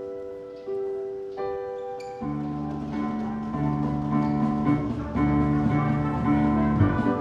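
Musical theatre scene-change music. Held chords for about two seconds, then a fuller, louder passage with a bass line and a pulsing beat comes in.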